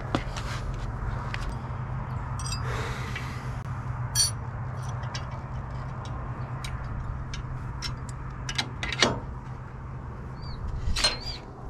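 Scattered sharp metal clicks and clinks of bolts, washers and nuts being fitted by hand into square steel caster legs on a steel welding table, over a steady low hum.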